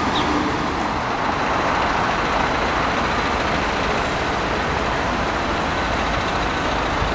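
Steady road-traffic noise, an even continuous rush of vehicles.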